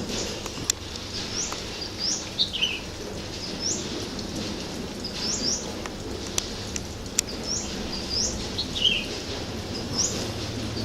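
Wild birds calling: short high chirps that sweep upward, often in pairs, repeated every second or so, with a brief falling run of notes twice. A few sharp clicks sound among them.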